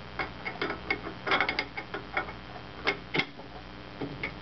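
Chuck keys clicking and clinking in the jaw screws of an Atlas lathe's four-jaw chuck as the jaws are snugged a little each: irregular sharp metal ticks, bunched together about a third of the way in and again twice near the end.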